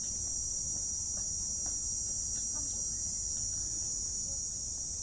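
Steady, high-pitched drone of insects shrilling in dry woodland, unbroken and even in level.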